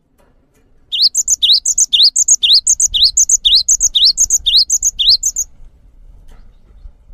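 Cinereous tit (gelatik batu) singing, starting about a second in. It repeats a short whistled phrase, a rising note followed by higher notes, about twice a second, some nine times over four seconds, then stops.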